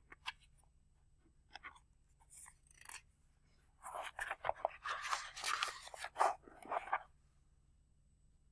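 Book pages being handled and turned: a few light clicks and taps, then about three seconds of paper rustling and crackling starting about four seconds in.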